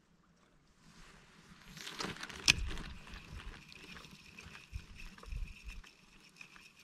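Spinning fishing reel being worked: a sharp click about two and a half seconds in, then a faint steady whir with light ticking as the handle is turned and line is reeled in.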